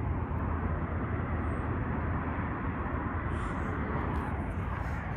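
Steady outdoor background noise with a low rumble, and no distinct events.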